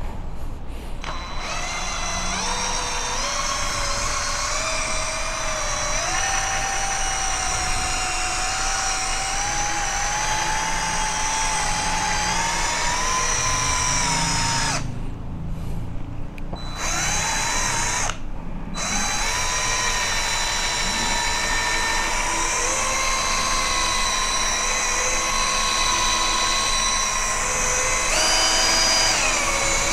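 Cordless drill spinning a foam polishing pad against a scooter's painted front fender, buffing out hairline scratches with polishing compound. The motor whine drifts up and down in pitch with the trigger, cuts out twice briefly about halfway through, and rises for a moment near the end.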